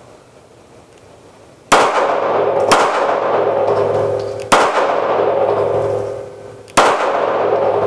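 Four handgun shots, unevenly spaced, each followed by a long ringing decay.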